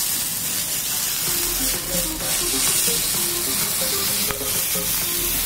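Hot fat poured from a ladle onto meat on a serving platter, giving a steady, continuous sizzle.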